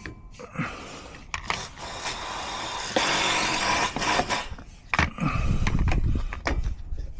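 Cordless drill-driver running in short runs, driving screws to fix a gate hinge, with knocks from handling the metal fittings.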